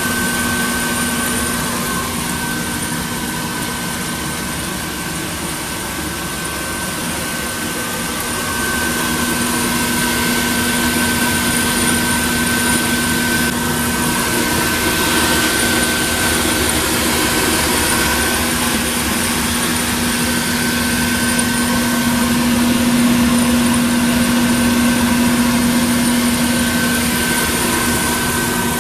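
Electric exhaust blower and roaster machinery of a home-built coffee roaster running steadily, a constant hum with a higher whine over a broad rush of air, pushing the roast exhaust through the ducting; it gets a little louder about a third of the way in.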